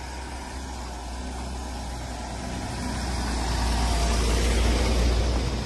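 Passenger van driving slowly up a dirt road, its engine rumble and tyre noise growing louder as it approaches and passes close by, then falling away near the end.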